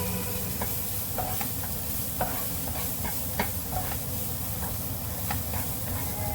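Food sizzling in a hot pot, a steady hiss with scattered small clicks and taps.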